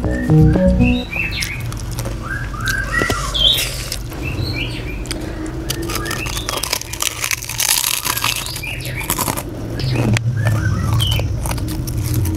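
Potato crisps crunching in the mouth in irregular crackly bites, the biggest run of crunches a little past the middle. Short high bird-like chirps are scattered throughout, over a low steady hum, and background music ends about a second in.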